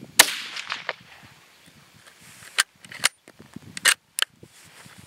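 A single rifle shot from a 7.62x39mm Zastava M85 bolt-action rifle, with a short echoing tail; the salvaged primer has fired the cartridge. A few seconds later come four sharp metallic clicks of the bolt being worked.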